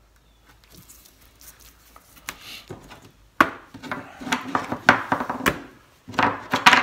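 Paper rustling as a pattern is smoothed over a steel sheet, then sharp metallic clacks as small welding magnets snap down onto the steel, first about three and a half seconds in and then several more near the end.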